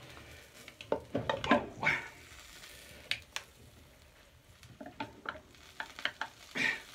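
A whole chicken on a cider can being lifted and shifted across a metal grill rack over hot charcoal: scattered clinks, knocks and scrapes of metal, loudest around a second and a half in, over a faint sizzle of the meat cooking.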